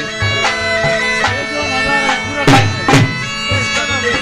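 Bagpipe playing folk dance music over a steady drone, with a couple of drum strokes a little past halfway.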